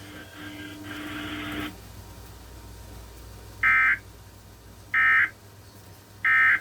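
Emergency Alert System end-of-message signal: three short, identical bursts of SAME digital data tones, about 1.3 seconds apart. Before them, a steady buzzy tone sounds for about a second and a half.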